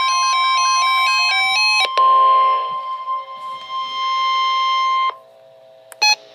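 NOAA Weather Radio warning alarm tone, a steady high beep, with a fast electronic beeping melody over it for the first two seconds. After that a buzzier layer comes in, and the tone cuts off suddenly about five seconds in. A couple of short electronic blips follow about a second later.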